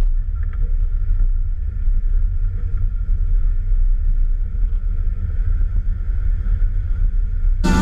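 Steady low rumble of an off-road 4x4 crawling along a rocky trail, its engine and driveline heard from inside the cab.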